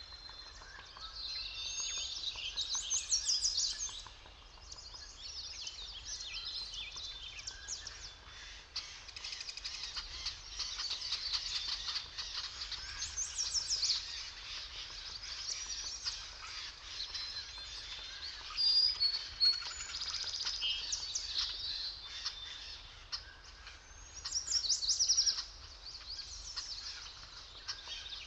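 A chorus of several songbirds chirping and trilling, overlapping throughout with louder bursts now and then, over faint steady background noise.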